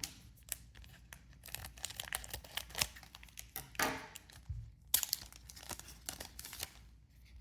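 Foil trading-card booster pack and cards being handled: irregular crinkling and rustling with tearing sounds, as a pack is torn open and the cards are shuffled through.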